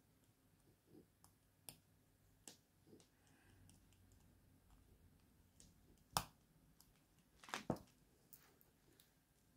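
Faint, scattered small clicks and scrapes of a spring bar tool and a metal bracelet end link working against a watch case's lugs, with the sharpest click about six seconds in and two more a second and a half later.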